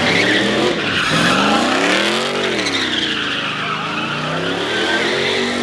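A car's engine revving hard while its tires screech in a slide: the engine climbs in pitch to a peak about two seconds in, drops back, then climbs again near the end, over a steady tire screech.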